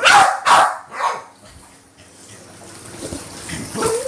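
Dog barking three times in quick succession, the barks about half a second apart, followed by quieter splashing of pool water.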